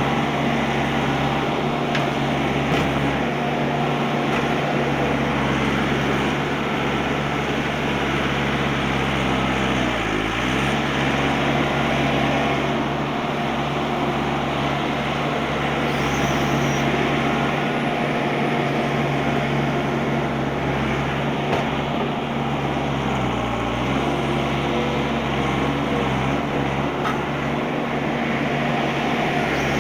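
Bobcat skid-steer loader's diesel engine running steadily, its pitch dipping briefly twice, about a third of the way in and again about three quarters through, before recovering.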